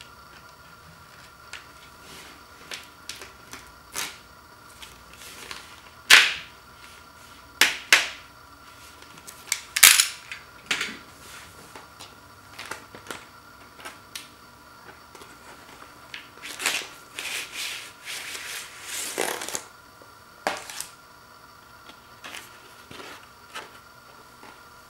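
Plastic shrink wrap being slit and pulled off a cardboard LP record jacket: a run of sharp crackles and snaps, the loudest about six, eight and ten seconds in, and a longer stretch of crinkling a little past halfway. Quieter rustling of the cardboard jacket follows near the end.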